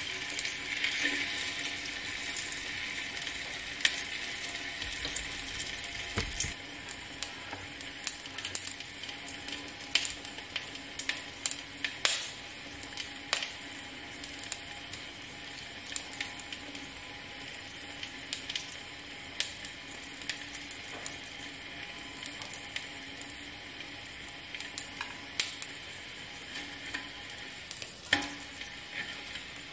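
A piece of dried fish frying in a little hot oil in an aluminium pan: a steady sizzle with frequent sharp crackles and pops of spitting oil.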